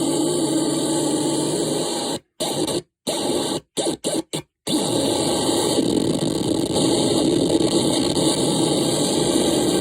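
Loud harsh noise from an experimental electronic noise machine: a dense wall of hiss and buzzing with a strong droning band low in the mix, cut to silence several times in quick succession about two to five seconds in, then running on unbroken.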